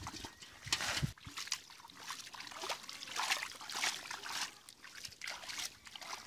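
Shallow muddy water splashing and trickling in irregular short bursts as hands scoop and dig through mud and bare feet wade in it.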